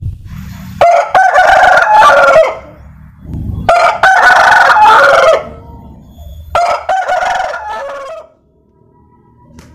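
Ayam Bangkok rooster crowing three times, each crow about a second and a half long, a few seconds apart.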